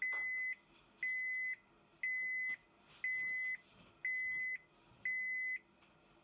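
Washing machine's buzzer beeping six times, one short high beep a second: the signal that the wash cycle has finished.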